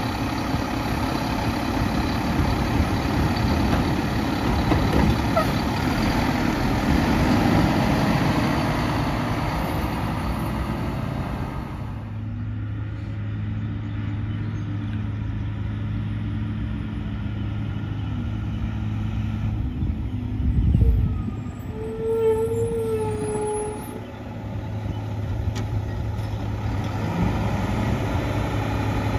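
Mack LEU garbage truck with a McNeilus Contender body and Curotto-Can arm, its engine and hydraulics running loudly as the arm lifts and dumps a cart. After about 12 seconds it is farther off, a steadier low engine hum with one heavy thump about 21 seconds in.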